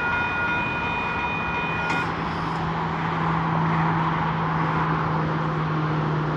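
Railroad crossing bell ringing steadily as the gate arms rise, cutting off abruptly about two seconds in. A steady low hum and a rumbling noise carry on after it.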